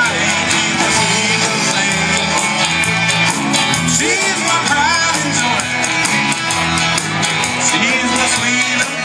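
Live rock band playing a cover song: electric guitar, bass and drums keeping a steady beat.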